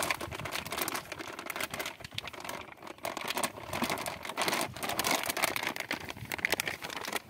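Plastic packet and plastic sheet crinkling and crackling as flour is shaken out of the packet onto a heap of dry bait mix, then handled, with dense irregular crackles throughout.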